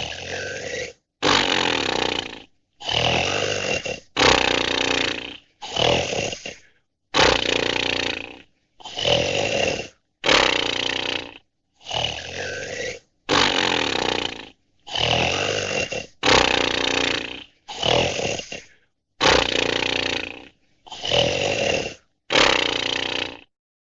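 Snoring: about sixteen loud snores in a row, each about a second long, roughly one every second and a half, with dead silence between them.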